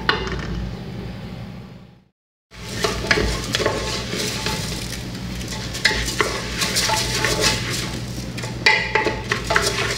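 Wooden spoon stirring rice as it is sautéed in oil with garlic and onion in an aluminium pot: grains scraping and clicking against the metal over a light sizzle. The sound fades out and breaks off for a moment about two seconds in, then the stirring resumes.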